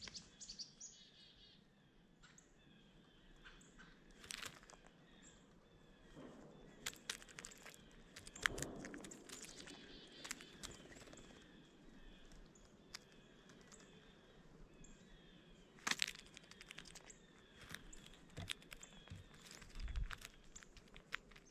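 Faint chirping of small birds, many short repeated chirps, with scattered sharp taps and clicks, the loudest about halfway through and again near the end.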